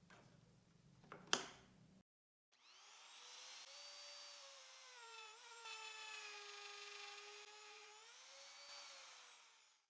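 A sharp click about a second in, then a wood router with a 12 mm bit spinning up to a high whine. Its pitch sags while the bit cuts a corner joint, rises again as the bit comes free, and then fades out.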